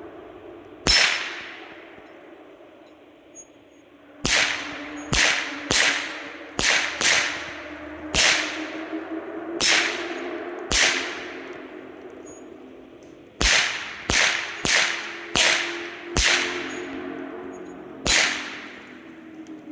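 Gunshots from firearms at an outdoor range: about fifteen single shots in irregular strings, each sharp crack followed by a ringing echo that dies away within about a second.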